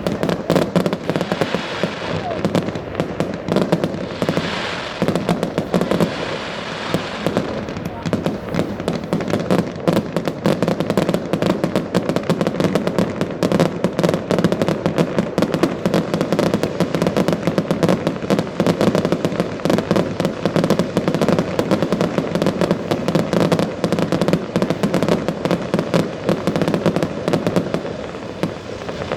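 Fireworks going off: a dense, unbroken barrage of many cracks and bangs overlapping one another, easing a little near the end.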